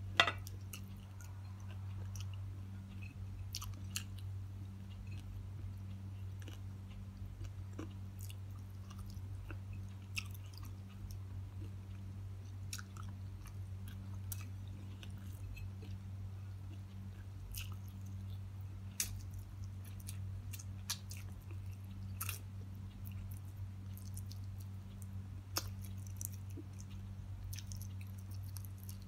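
A person chewing fried tilapia and rice eaten by hand, with scattered small clicks over a steady low hum. A sharp click sounds just after the start.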